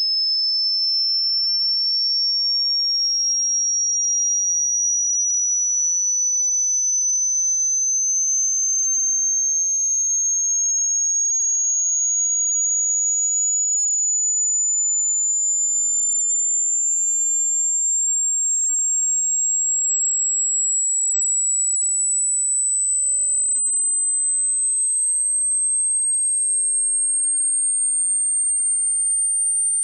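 A single loud, very high-pitched pure electronic tone, climbing slowly and steadily in pitch.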